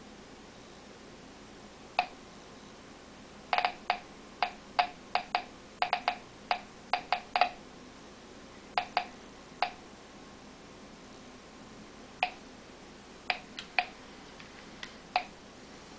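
Home-built Geiger counter clicking out counts at random intervals, each count a short pitched click, as its tube picks up radiation from a smoke detector's americium-241 source. There is a single click about two seconds in, then a fast irregular flurry from about three and a half to seven and a half seconds in, thinning to a few scattered clicks.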